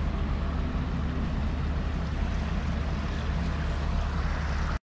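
Steady rush of a river running high in flood after days of rain, over a steady low rumble. It cuts off abruptly near the end.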